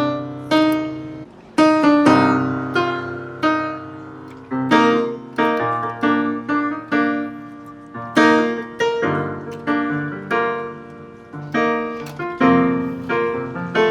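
Piano playing a ballad accompaniment without singing: chords and melody notes struck one after another, about one to two a second, each ringing and fading.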